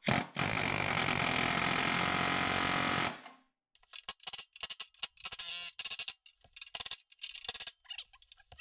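A power tool runs steadily on the car's steel body panels for about three seconds, then stops. Scattered light knocks and clicks of metal follow.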